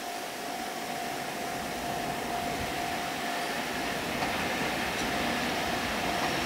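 Steady hum and rush of an approaching EF64 electric locomotive hauling tank wagons, growing gradually louder as it draws near, with a faint steady tone running through it.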